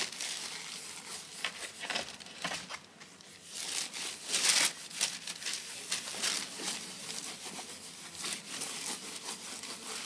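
A large sheet of paper crinkling and rustling as hands press and rub it against a tree trunk, in irregular bursts, the loudest a little past four seconds in.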